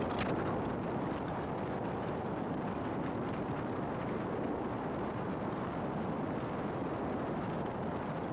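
Steady road noise of a car on the move: tyres on the pavement and wind against the car, even and unbroken.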